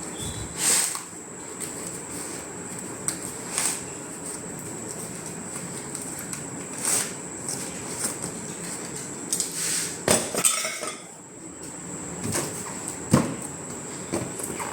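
Scattered clinks and knocks of hard parts being handled and set down, about a dozen irregular ones, with a sharper knock near the end.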